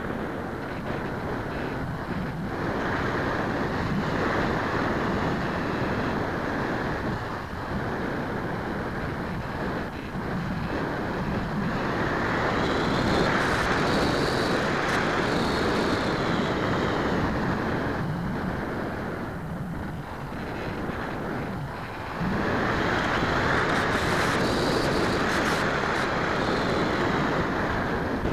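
Onboard audio from a radio-controlled model airplane in flight: a steady rush of wind over the airframe and microphone, with a faint whine that rises and falls. It swells louder twice, about halfway through and again near the end.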